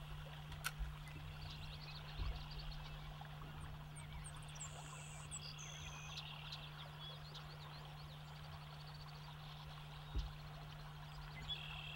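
Faint outdoor ambience: scattered bird calls and short whistles over a steady low hum, with a couple of soft low thumps about two seconds and ten seconds in.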